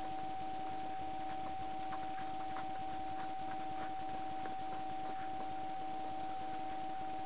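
Steady high-pitched electronic whine over an even hiss, the small head camera's own recording noise, with a few faint scattered ticks.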